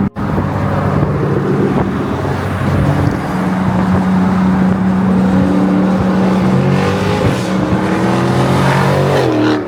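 Dodge Challenger Scat Pack's 6.4-litre HEMI V8 running loud under throttle, its pitch climbing in the second half.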